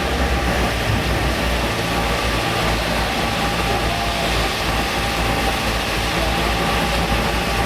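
An engine idling steadily, with an even low pulse and no change in speed.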